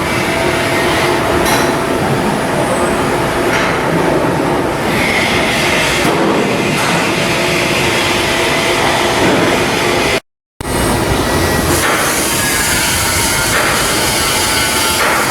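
Loud, continuous shipyard machinery and metalworking noise, a dense clattering din with a faint steady hum running through it. It drops out completely for a moment about ten seconds in, then resumes with a slightly different texture.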